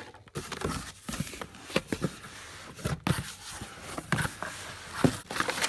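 A cardboard shipping box being opened by hand: flaps rustling and scraping, with crinkling of plastic air-pillow packing and irregular small knocks.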